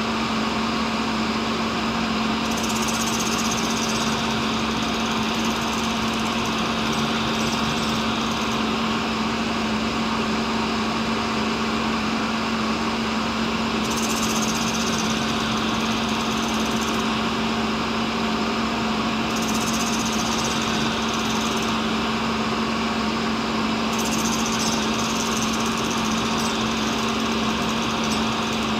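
Cincinnati tool and cutter grinder running with a steady hum while its wheel circle grinds the outside diameter of an endmill. A hiss of grinding rises over the hum four times as the wheel makes passes along the cutter.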